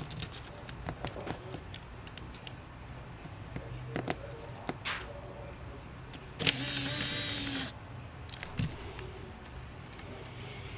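Light clicks and taps of handling, then, about six seconds in, a Canon IXUS 950 compact camera's lens motor whirs steadily for about a second and stops sharply.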